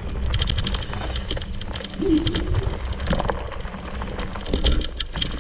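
Low rumbling wind and handling noise with scattered clicks and rustles of movement, and a short dove-like cooing call about two seconds in.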